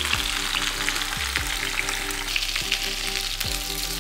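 Chicken thighs frying skin side down in oil in a frying pan, a steady sizzle full of small crackles and pops as fat renders out of the skin. Light background music runs underneath.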